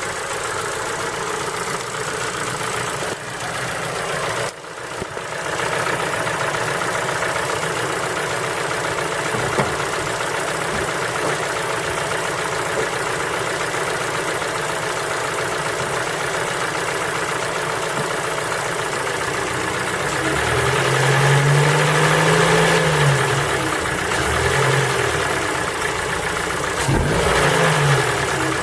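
Ford Focus 3's 1.6-litre four-cylinder PNDA petrol engine idling cold, then revved up and let fall back twice in the last third. The uploader puts the cold-engine knock down to the piston pins.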